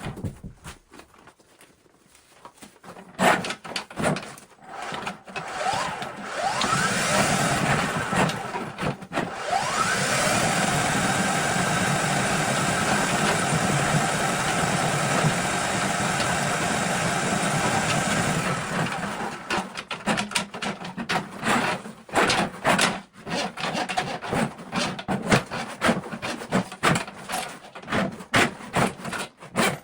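A small motor spins up, runs steadily for about twelve seconds and stops, with scattered knocks and clatter of hands-on work before and after it.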